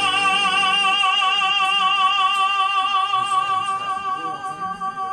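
A woman singing one long held note with vibrato in an operatic style, sustaining the word "Spiel".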